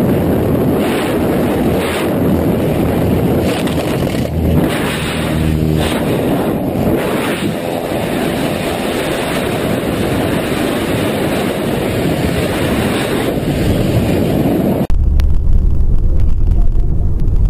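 Loud wind rushing and buffeting the microphone of a skydiver's camera in the airstream. Near the end it cuts off abruptly, replaced by the low rumble of a car driving, heard from inside the cabin.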